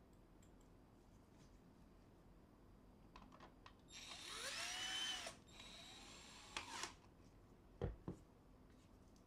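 Cordless drill-driver turning a screw in the plastic housing of an HP NeverStop toner cartridge, in two short runs, its motor pitch rising each time. A sharp knock follows about a second later.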